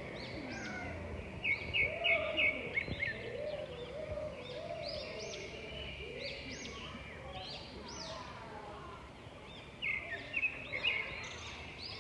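Several birds singing and chirping at once, many short rising-and-falling notes, with the loudest quick runs of bright repeated notes about a second and a half in and again near the end.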